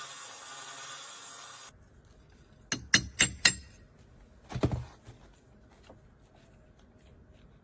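Power drill with a 2.5-inch masonry hole-saw bit cutting into brick, stopping abruptly about two seconds in. Then come four quick, sharp knocks, and another knock about a second later.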